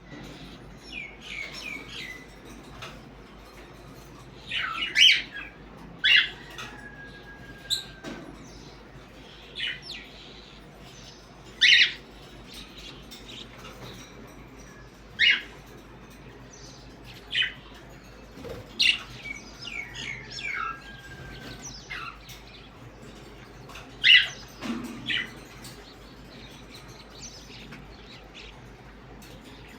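Pet parrots calling: short, sharp, high-pitched calls every second or two, irregularly spaced, with a short level whistle twice.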